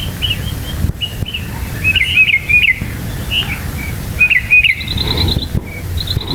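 Northern mockingbird singing: a varied string of short chirped and whistled phrases, ending in quick runs of high repeated notes, over a low steady rumble.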